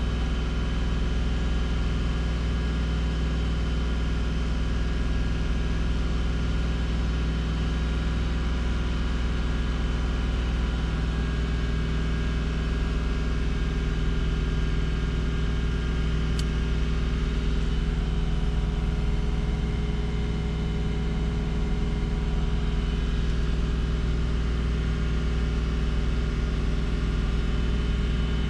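2002 Subaru Outback's flat-six engine idling steadily while it is held at operating temperature to bleed the cooling system after a coolant refill. A single faint tick sounds partway through.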